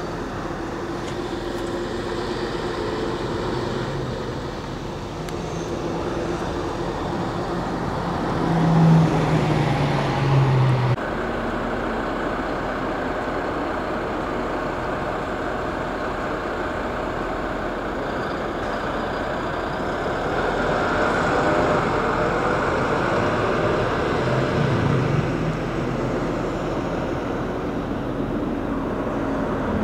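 City buses' diesel engines running and driving past, with road traffic noise. An engine grows louder about nine seconds in.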